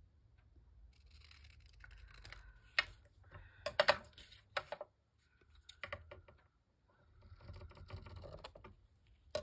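Paper being handled and rustled on a craft desk, with scissors clicking and tapping against the cutting mat; a cluster of sharp clicks about four seconds in is the loudest part.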